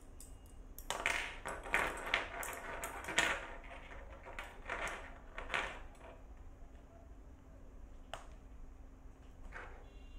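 Small steel nail clippers clicking and clinking as they are handled and set down on a table: a quick run of sharp metal clicks, then two single clicks near the end.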